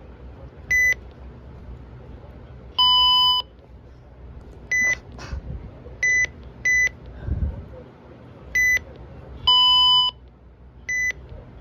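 Weather alert radios still beeping after being set off by the weekly test: one gives short, high beeps seven times at uneven intervals, another a longer, lower beep twice.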